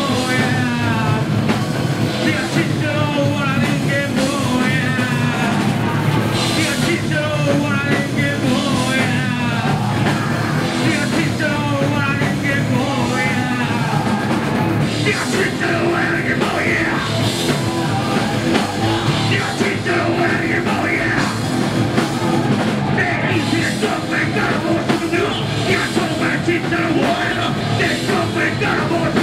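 A rock band playing live: drums, electric bass and guitar, with a singer's vocals over them.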